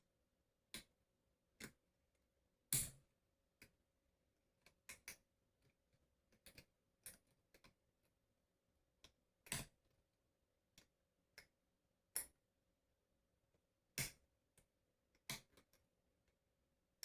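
Faint, irregular clicks and ticks of a hook pick and tensioner working the pin stack of a Federal 900 padlock during single-pin picking. A faint steady hum sits under them.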